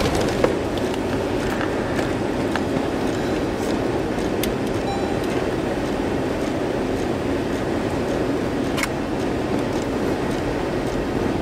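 Steady rumble of road and wind noise inside a moving vehicle, with a few sharp ticks.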